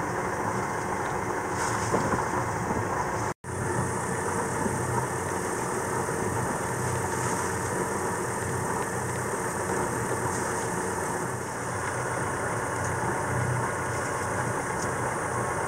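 A sailboat's auxiliary engine running steadily at low speed while motoring through shallow water, with a brief gap in the sound about three seconds in.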